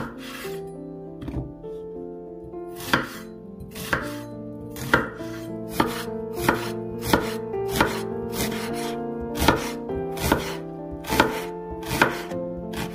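Chef's knife dicing a peeled onion on a bamboo cutting board: a series of sharp knocks as the blade cuts through onion onto the wood, about one to two a second.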